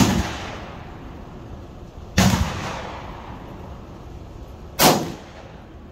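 Three gunshots about two and a half seconds apart, each followed by a brief echo.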